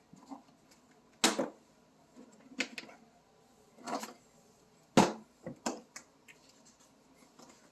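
Several separate sharp knocks and clicks, the loudest about a second in and again about five seconds in: parts and plugs being handled, with no steady running sound.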